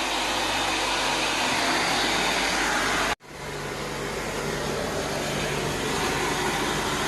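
Steady rushing noise of carpet-cleaning extraction vacuum equipment running. It cuts out abruptly about three seconds in and comes straight back.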